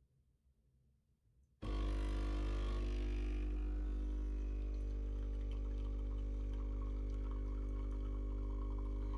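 De'Longhi espresso machine's pump humming steadily as it pulls a shot, with espresso trickling into a ceramic cup. The hum starts suddenly about a second and a half in.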